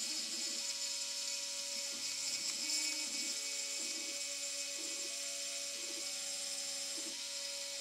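Salvaged Xerox stepper motor driving a threaded-rod lead screw on a homemade CNC axis, whining with steady tones that jump to a new pitch every second or so as the step rate changes, over a constant hiss.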